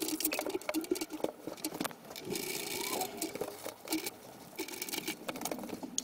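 Screwdriver undoing the retaining screw of a Euro cylinder lock and the cylinder being worked out of the door, played sped up: a rapid, irregular run of small metallic clicks and rattles.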